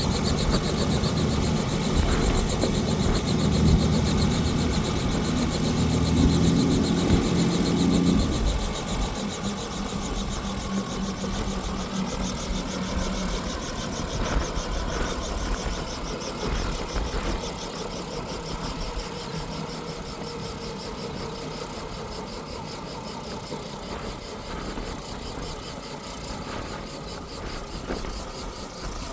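Small helicopter running on its helipad, engine and rotor turning; a strong low hum stops about eight seconds in and the sound eases off after that.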